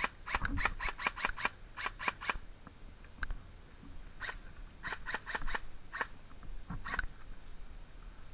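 Airsoft guns firing a rapid string of sharp shots, about five or six a second, then a pause and a second, looser string of shots a few seconds later.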